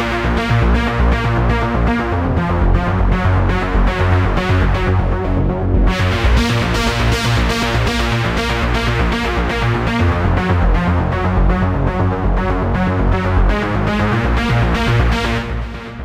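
Tone2 Gladiator software synthesizer playing its trance preset 'AR Tranz MF': a fast, evenly pulsing synth pattern over a deep bass. About six seconds in the bright top end drops out for a moment and then returns, and the sound fades away near the end.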